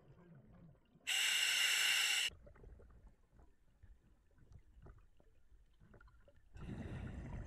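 A scuba diver breathing through the regulator of a full face mask. A loud hiss of inhalation starts about a second in and lasts about a second. Near the end comes a low rumble of exhaled bubbles.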